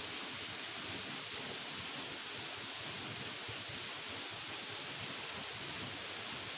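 Steady rushing noise of a waterfall, even and unbroken, with most of its energy in a high hiss.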